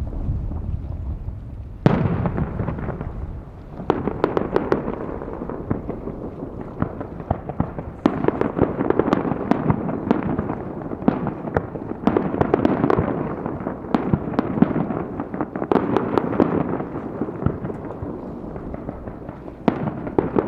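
Fireworks display: aerial shells bursting with sharp bangs every few seconds, over a continuous rapid crackling.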